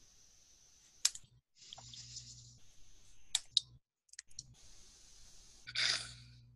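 Computer mouse clicks: one sharp click about a second in and a quick pair near the middle, over a hiss and low hum that cut in and out. A short breathy rush of noise comes near the end.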